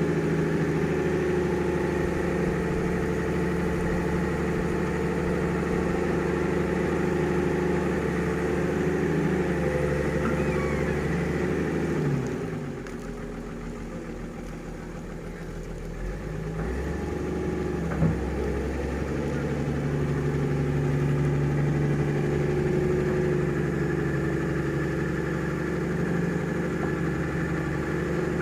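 Diesel engine of an excavator working while loading a dump truck, running steadily. About twelve seconds in it drops in pitch and level, then it picks back up over the next few seconds. A single sharp knock comes near the middle.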